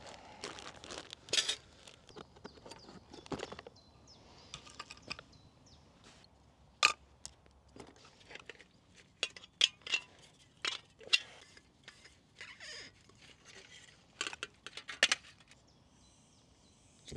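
Camp cooking gear being handled: scattered clicks and knocks as a cutting board, knife and gas canister are picked up and set down. Near the end the canister is threaded onto the gas stove's hose connector and a faint steady hiss starts.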